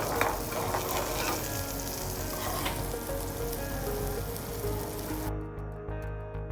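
Salmon and a butter sauce sizzling in hot pans on a restaurant stove, with a few sharp clicks. About five seconds in the sizzling cuts off and background music with a steady beat takes over.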